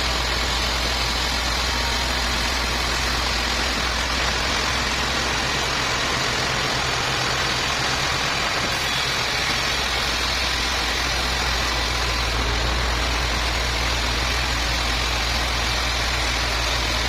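Sawmill machinery running steadily: an engine-like drone with an even whirring noise over it, with no breaks.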